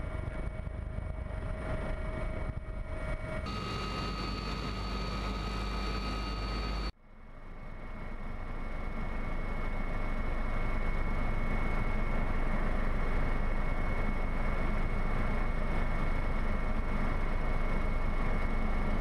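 AgustaWestland AW139 twin-turbine helicopter in flight: a steady rumble with several steady whining tones above it. The sound changes abruptly about three and a half seconds in, drops out briefly near seven seconds, and fades back up to a steady level.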